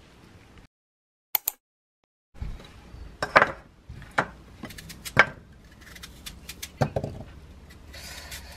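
After a moment of dead silence, a glass food container with a snap-lock lid and a wooden bowl are handled on a kitchen counter: a series of sharp clicks and knocks, about one a second, as the container is set down and its lid unclipped and lifted off, with a knife starting to peel an apple near the end.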